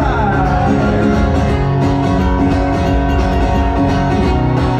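Live band playing country music through a bar's sound system, with amplified guitars to the fore.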